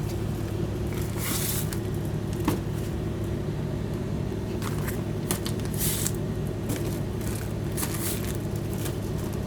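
A bag rustling and crinkling in irregular short bursts as items are packed into it, over a steady low hum.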